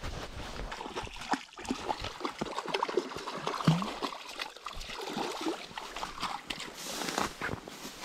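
Water of a small stream splashing and trickling, with scattered knocks and rustles; it starts abruptly.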